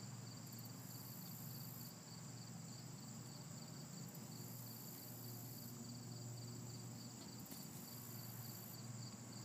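Faint insect chorus of crickets trilling steadily, with a higher, hissing buzz that comes and goes every couple of seconds.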